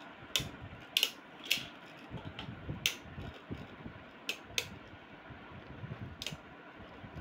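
Two Beyblade Burst spinning tops, Victory Valtryek and Storm Spryzen, whirring on a plastic-lined cardboard stadium floor, with several sharp plastic clacks at irregular moments as they hit each other.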